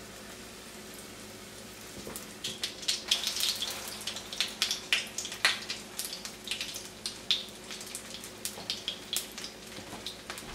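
Egg-battered potato cakes frying in hot oil: a crackling spatter that starts about two seconds in, is thickest for the next few seconds, then thins to scattered pops.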